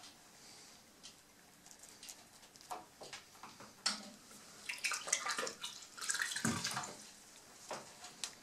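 Soft wet dabbing and rubbing of liquid hide-and-bone glue being worked into splintered wood, with scattered small clicks. It is busiest in the middle, from about four and a half to seven seconds in.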